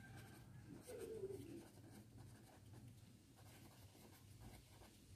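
Faint scratching of a felt-tip sketch pen writing on paper.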